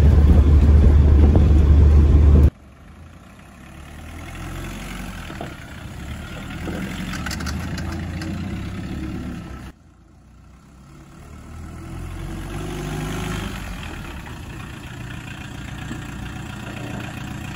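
VW Rabbit pickup's four-cylinder engine running while driving: a loud, steady drone inside the cab for the first couple of seconds, then, heard from outside, the engine growing louder as the truck pulls in. The outside sound breaks off suddenly about ten seconds in and builds up again.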